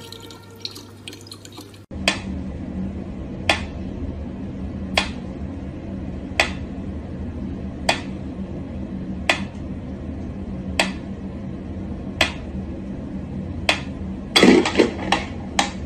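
Mechanical pendulum metronome ticking slowly, one sharp tick about every second and a half, over a steady low hum. Near the end comes a quick flurry of clicks and knocks as a cat paws at the pendulum. Before the ticking starts, tap water trickles into a plastic bottle.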